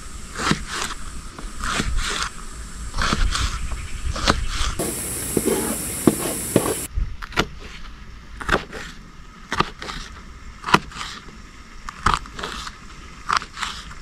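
Kitchen knife chopping bell peppers on a plastic cutting board: uneven taps of the blade striking the board, about one or two a second.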